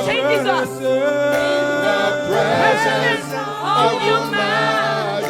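A church worship team singing a slow worship song, with voices gliding between sustained notes over steady held chords.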